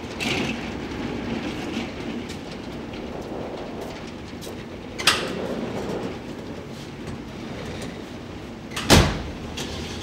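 Metal roller shutter door rattling as it rolls up, with a sharp clack about five seconds in and a heavy thump near the end.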